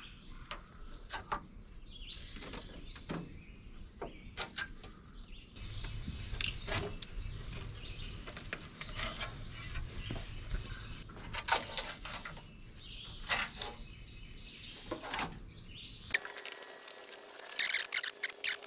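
Scattered clicks, taps and scrapes of metal and glass as window panes and their retaining strips are worked out of the rusty steel cab door of a 1960s Galion road grader, with birds chirping in the background. The sounds become sharper and closer together near the end.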